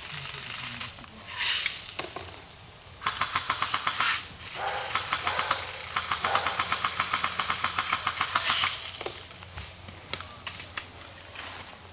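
Airsoft guns firing rapid bursts of about ten shots a second: a short burst about three seconds in, then a longer burst of about two and a half seconds.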